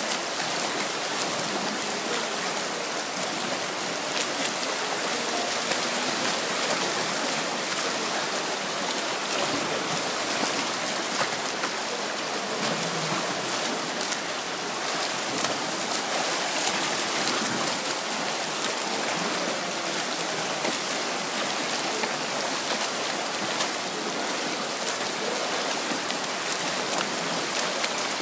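Steady splashing and churning of water from swimmers doing front crawl in a pool, a continuous wash of noise with small splash clicks throughout.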